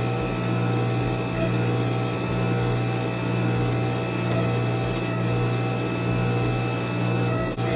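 Hydraulic forging press running with a steady motor drone while the eye of an axe head is punched through.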